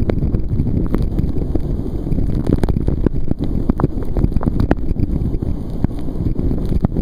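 Steady loud rush of a canyon waterfall's water and spray, with wind buffeting the microphone and scattered short clicks.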